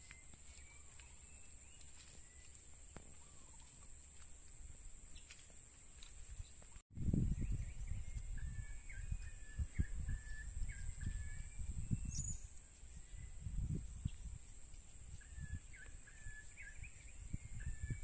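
Forest ambience with a steady, high-pitched insect drone. A bird gives series of short, quick chirping notes in the second half. After a brief dropout about seven seconds in, a low uneven rumble comes and goes.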